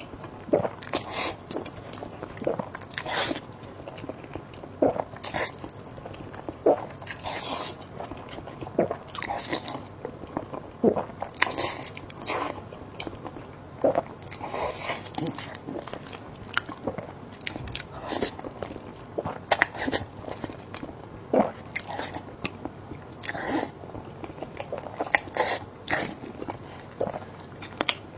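A person eating close to the microphone: bites and chewing, with irregular sharp mouth noises coming about once or twice a second.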